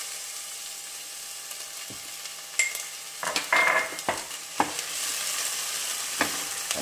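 Chopped onion sizzling in hot olive oil in a stainless steel saucepan, a steady hiss. From about two and a half seconds in, a wooden spoon stirs it, knocking and scraping against the pan several times.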